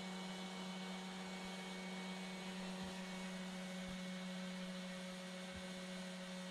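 Steady low electrical hum with a faint hiss, with a few soft, faint knocks about halfway through.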